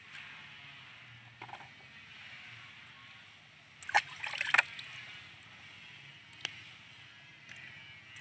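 Machete and wet hands working small fish on a wooden log: quiet scraping and handling, with a short burst of sharp clicks and scrapes about four seconds in and a single click a little later.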